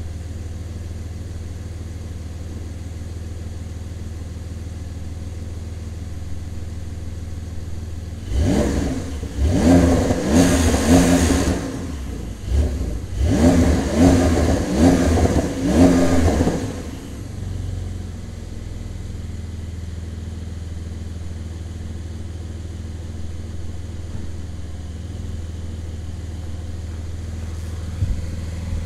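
Porsche 911 (992) Carrera S's twin-turbo 3.0-litre flat-six idling through its sports exhaust, revved twice about a third of the way in, each rev held for a few seconds before it drops back to a steady idle. The revs are capped at about 3000 rpm by the car's stationary rev limit.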